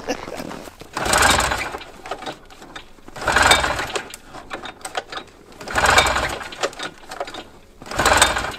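A Yamaha Enticer snowmobile's two-stroke engine being pull-started cold with its recoil cord. There are four pulls about two and a half seconds apart, each a short burst of the engine turning over that dies away without catching.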